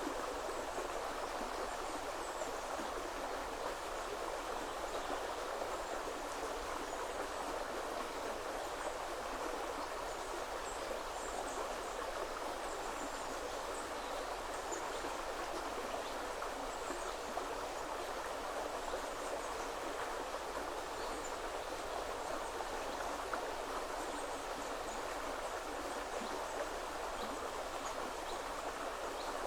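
Woodland river flowing with a steady, even rush of water, joined now and then by faint, high, short bird chirps.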